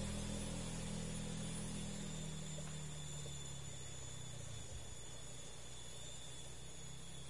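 A motor vehicle's engine hum that fades away over the first few seconds as it moves off. A steady faint hiss and a thin high tone remain behind it.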